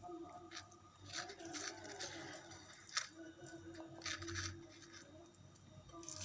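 Hands rolling minced-sardine kofta paste into balls and setting them in a baking dish: soft squishing of the wet fish mixture with a few light taps and clicks, the sharpest about three seconds in.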